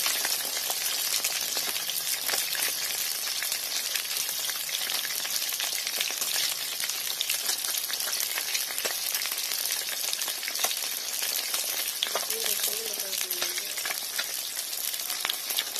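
Fish steaks shallow-frying in hot oil in a pan: a steady sizzle with constant fine crackling and popping.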